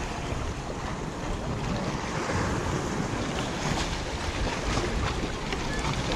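Sea surf washing and breaking against the rocks of a jetty, with wind buffeting the microphone.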